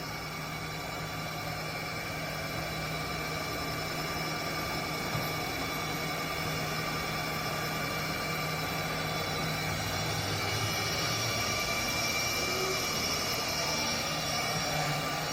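Haas VF-0E CNC vertical machining center running with its spindle at 2500 RPM: a steady mechanical whine made of several fixed tones over a hum, growing slightly louder over the span.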